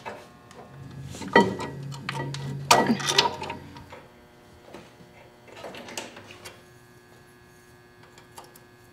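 Hand tools on brake caliper and brake line fittings: a few sharp metal clicks and scrapes over a faint steady hum in the first half, then quieter handling sounds.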